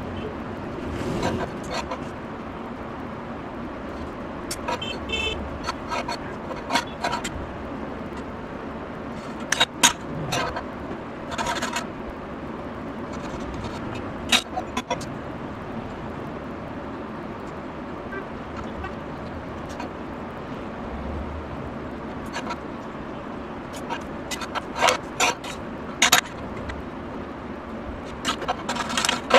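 Short clicks and knocks of steel plates and a steel square being handled and set down on a bench, over a steady background of street traffic.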